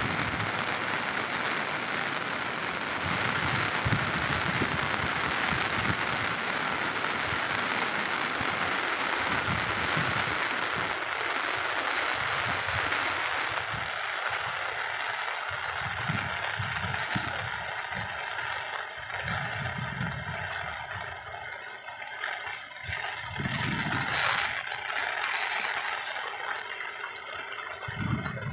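Muddy floodwater rushing in a rain-swollen stream: a steady, even rushing that thins somewhat about halfway through, with occasional low thumps on the microphone.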